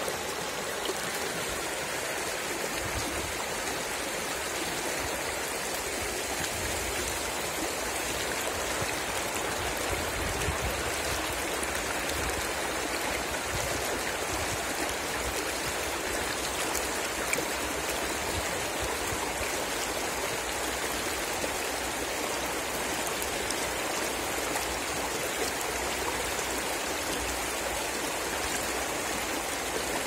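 Shallow river running fast over rocks and stones in a riffle: a steady, even rush of water.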